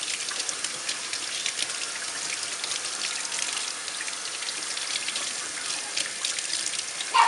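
Tap water running from a sink faucet, splashing over a puppy's fur being rinsed and pattering into the sink and drain. A brief squeak near the end.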